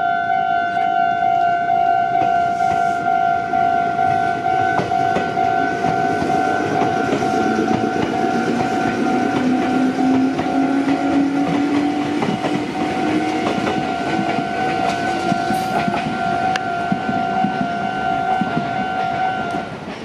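Japanese level-crossing alarm bell ringing in a rapid, steady repeating ding while a red Meitetsu electric train passes close by with a dense rumble and wheel clatter. A low whine rises slowly in pitch midway, and the bell stops just before the end as the crossing clears.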